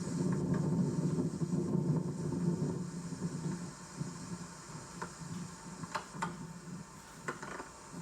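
Swarm of honeybees buzzing around a hive: a dense, wavering hum that is strongest for the first few seconds and then fades. A few short clicks are heard in the second half.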